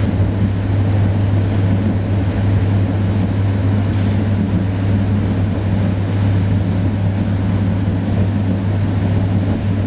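Steady low hum and rumble of a passenger train carriage on the move, heard from inside, unchanging throughout.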